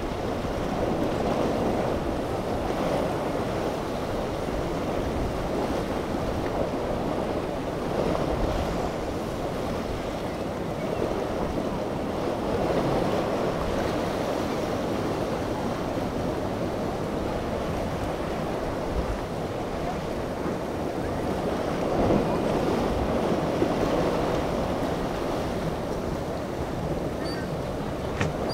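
Choppy inlet water surging and breaking, with wind buffeting the microphone and a Tiara 2700 sport-fishing boat running through the waves. The rush of water swells and eases every few seconds.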